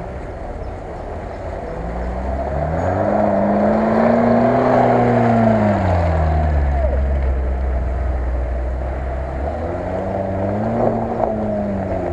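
Lada Niva's engine revving as it drives through deep mud close by, the pitch climbing and falling twice, loudest about four to six seconds in.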